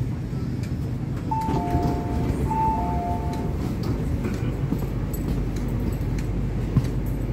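A two-tone electronic chime on an MTR Kwun Tong Line C-Train, sounding twice (high then low) over the train's steady low rumble.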